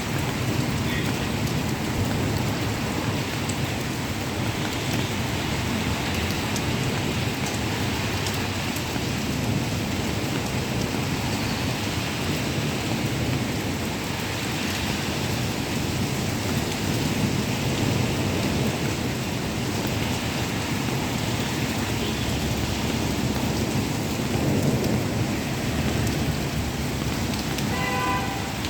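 Heavy rain pouring down steadily, with a continuous low rumble under the hiss. Near the end a brief pitched tone sounds over it.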